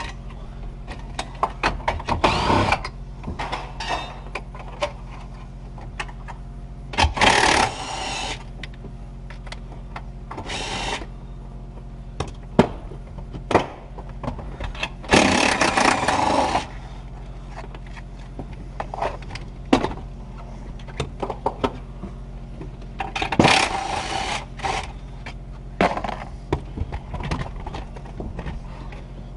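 Mechanics' tools working on a pickup truck's dashboard: about five short runs of a power tool, each around a second long, the longest near the middle, between clicks and knocks of tools and plastic dash parts. A steady low hum runs underneath.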